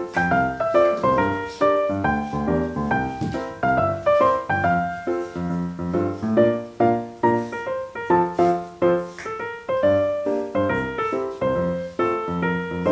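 Background piano music: a lively tune of many short notes, each struck and fading.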